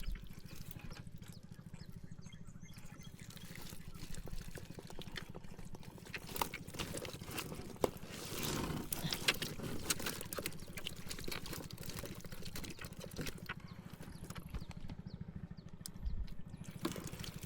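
Water trickling and splashing with scattered clicks and knocks as a fish-trap net is handled out of the water, busiest around the middle, over a steady low hum.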